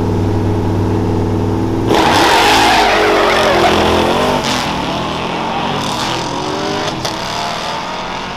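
Chevrolet Camaro SS's LT1 V8 held at steady raised revs on the start line, then launching about two seconds in with a sudden loud burst and accelerating away down the drag strip. Its pitch climbs and drops several times through the gear changes as it fades.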